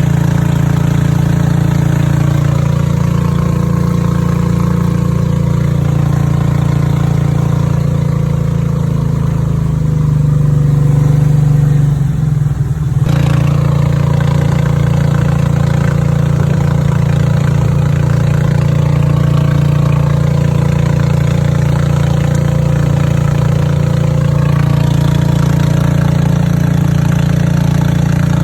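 Boat engine running steadily and loudly, its note swelling about ten seconds in and dipping briefly a couple of seconds later before settling back to a steady run.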